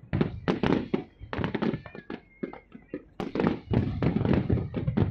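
Fireworks going off: rapid strings of sharp pops and bangs in several clusters, with short lulls between them.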